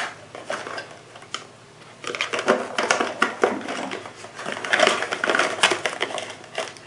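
Cardboard box and paper packaging being handled as items are pulled out of the box: rustling and scraping, turning into a busy run of small knocks and crinkles from about two seconds in.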